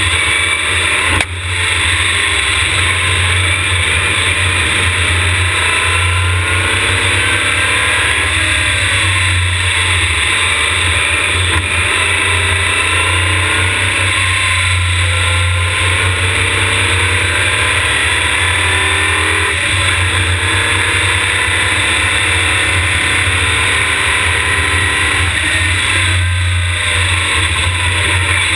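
Open-wheel hill-climb race car's engine under hard acceleration, rising and falling in pitch through the gears. A heavy steady rumble of wind on the car-mounted camera's microphone runs underneath it.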